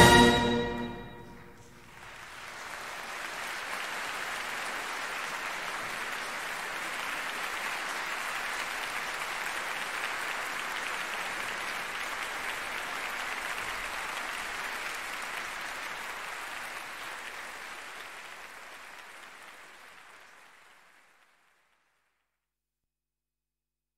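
A wind band's final chord dying away in the hall, then audience applause that rises, holds steady, and fades out near the end.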